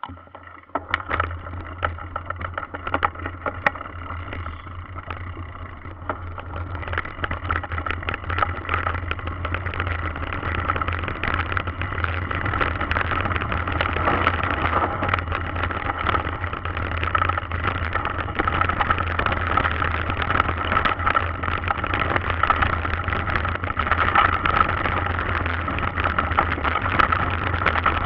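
Mountain bike ridden down a loose dirt-and-gravel trail: tyres crunching over the ground and the bike rattling and knocking over bumps, with a steady rush of wind on the bike-mounted camera's microphone. It grows louder over the first ten seconds or so as speed builds.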